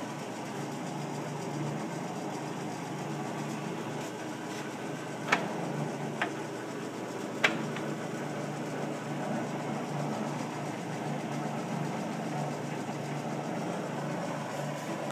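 South Bend engine lathe running steadily, its lead screw turning to drive the carriage along at a 2 threads-per-inch feed. Three sharp clicks come from the lathe's controls a little past the middle.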